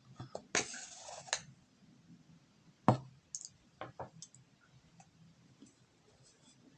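Close-miked eating sounds: a short crunchy rustle about half a second in, then one sharp click near three seconds and a few softer clicks after it.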